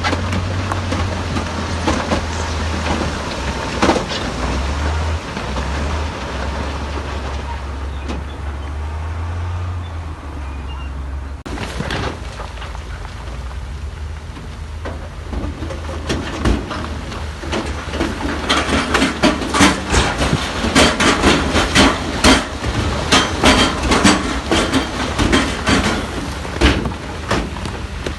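Heavy diesel earthmoving machinery at work: a deep, steady engine drone, which changes abruptly about a third of the way in. It is followed by rapid clattering and sharp knocks that grow denser and louder through the second half, stone and steel banging together.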